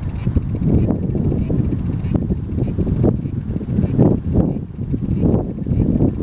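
A cicada singing: a fast, high-pitched pulsing buzz that swells in a repeated phrase about twice a second. A loud, irregular low rumble runs underneath.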